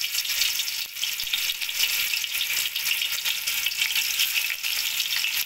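Marinated chicken tikka pieces sizzling in hot oil in a steel pot as they are laid in one at a time, a steady crackling hiss.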